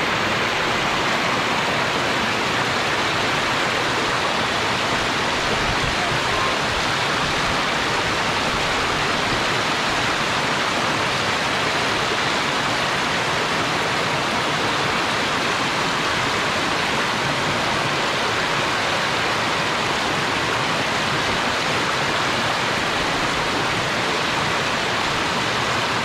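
Loud, steady rush of stream water pouring over rocks, with no let-up.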